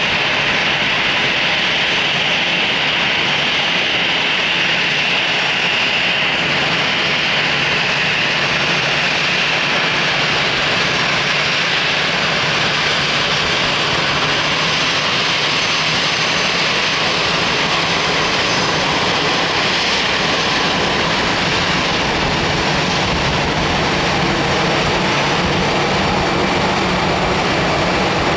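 Jet airliner engines running loud and steady, with a high whine that sinks slightly over the first ten seconds.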